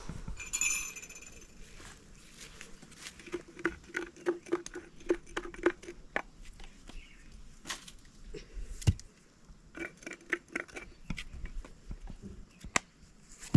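Runs of light taps and clinks, about four a second, with short pauses between, as from small utensils handled during coffee making.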